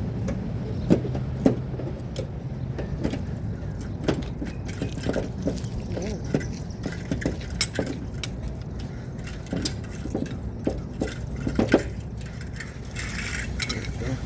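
Scattered metallic clinks and knocks of hand tools and hardware being handled during a roadside tire change, over a steady low rumble.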